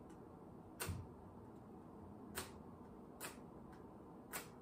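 Four sharp, separate clicks at uneven intervals over a quiet room's low background.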